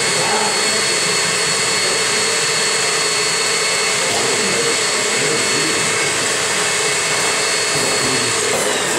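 Electric stand mixer running with a steady motor whine and whir. Near the end the pitch falls as the motor is switched off and winds down.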